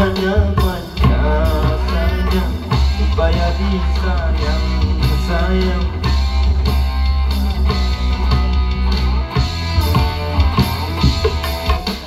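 Live band music played through amplifiers: an electric guitar or bass and a pair of hand drums under a bending melody line, with a strong steady bass.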